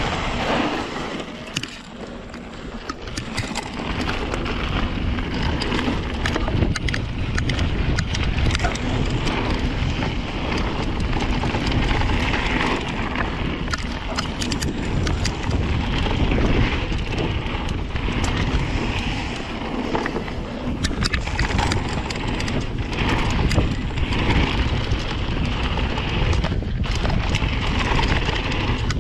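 Rocky Mountain Slayer mountain bike ridden downhill on a dirt trail: wind rushing over the GoPro's microphone, tyres rolling over dirt and stones, and the bike rattling with frequent clicks and knocks. It dips quieter for a moment about two seconds in.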